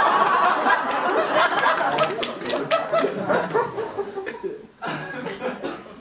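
Audience laughing, loud at first, then tailing off, with a last smaller swell near the end.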